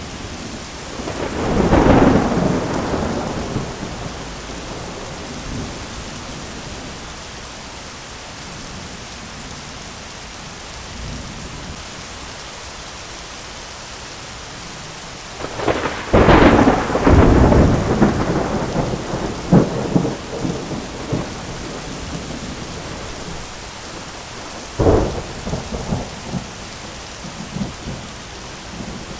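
Steady heavy rain with thunder: a rolling peal a couple of seconds in, a long, loud rumbling peal with crackles just past the middle, and a short sharp crack near the end.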